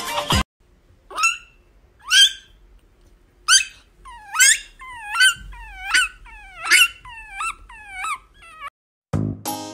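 Pomeranian puppy giving a run of short, high-pitched whimpering yips, two at first and then about ten coming roughly every half second, each sliding down and turning back up. Background music stops just after the start and returns near the end.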